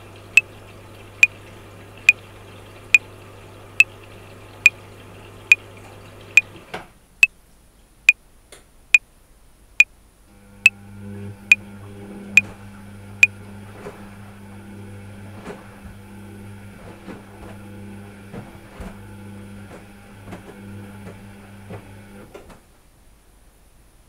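A metronome clicking at 70 beats a minute: sixteen clicks, four bars of 4/4, then it stops. Under it a top-loading washing machine on a cotton 60° wash runs with a steady motor hum. The hum stops about seven seconds in, starts again about three seconds later with the drum churning, and cuts off a little before the end.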